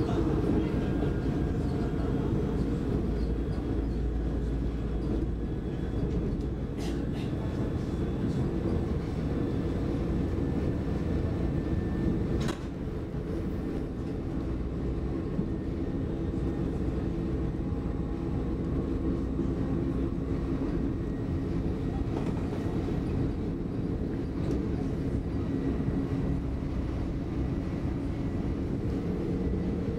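Steady running noise inside an X60 electric commuter train at speed: a low rumble of wheels on rail with a steady hum. A sharp click comes about twelve seconds in, after which it runs a little quieter.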